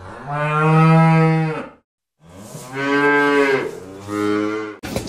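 A cow mooing twice: one long moo, then after a short silence a second, longer moo that drops to a lower pitch near its end.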